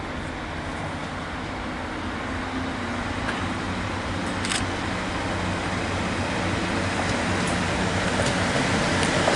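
Class 150 diesel multiple unit drawing slowly into the platform, its underfloor diesel engines running steadily and growing louder as it approaches. A short click about halfway through.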